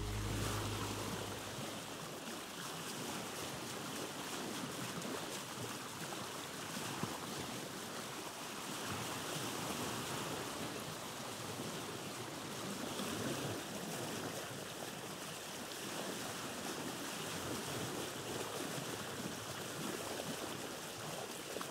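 A steady rushing noise that swells and eases slowly, with no distinct tones in it.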